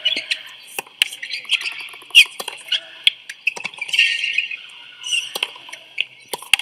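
Tennis rally on a hard court: sharp pops of racquet strikes and ball bounces about once a second, with sneakers squeaking on the court surface between them.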